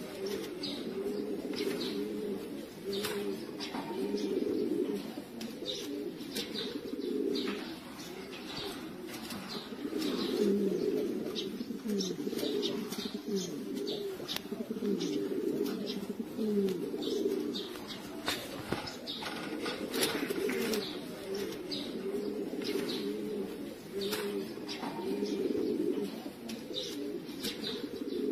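Domestic pigeons cooing without a break, several low rolling coos overlapping one another, with scattered light clicks and taps.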